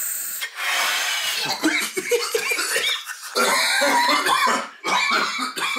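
Man coughing in repeated fits after inhaling a dab hit from a glass rig, starting about half a second in, with brief pauses between fits.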